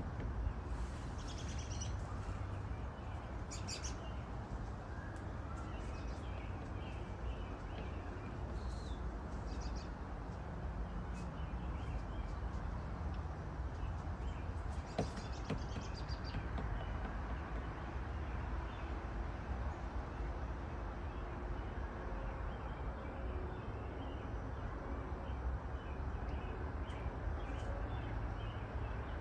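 Songbirds chirping now and then over a steady low background rumble, with short bursts of high chirps about a second in, near four seconds, around nine seconds and around fifteen to sixteen seconds.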